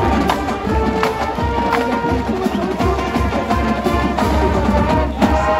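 Marching band playing: sustained brass notes over regular drumline beats, with a sharp percussion hit near the end.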